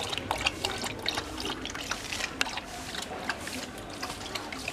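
A dog lapping water from a plastic tub: a quick, uneven run of wet laps, several a second.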